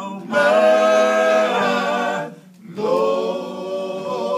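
Male a cappella gospel group singing in close harmony: a long held chord, a short breath about two seconds in, then a new chord with a lead voice moving above the others.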